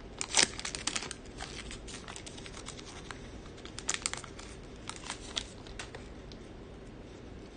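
Foil wrapper of a Panini Contenders football card pack crinkling and tearing as it is ripped open by hand. Sharp crackles come near the start and again about four to five seconds in, as the cards are pulled out of the wrapper.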